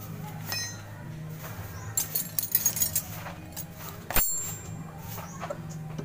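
Light metallic clicks and taps from a hand tool working on the brake adjustment of a Sharp top-load washing machine's spin mechanism: a cluster about two to three seconds in and one sharp click a little after four seconds. A low steady hum runs underneath.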